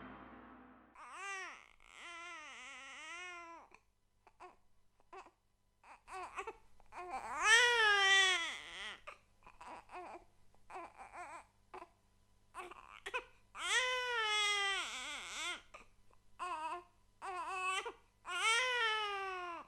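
A baby crying: four long wailing cries, each rising and then falling in pitch, with short whimpers and catches of breath between them. In the first second, the last ring of a gong dies away.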